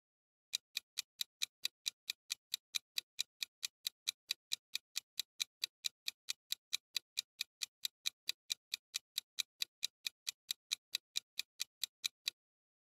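Clock-ticking sound effect of a quiz countdown timer, counting down the time to answer: even, sharp ticks at about four to five a second, starting about half a second in and stopping just before the end.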